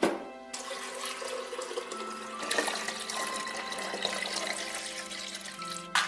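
A knock from the coffee machine's water-tank lid, then water running and splashing as the tank is refilled with fresh water, loudest midway.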